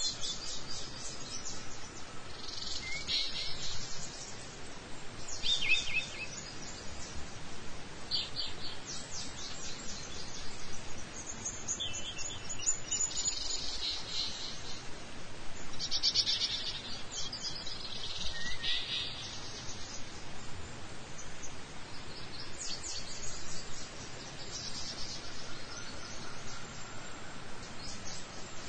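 Birds calling close by: repeated bursts of rapid, high-pitched trills, each a second or two long, every two to three seconds, over a steady low background noise.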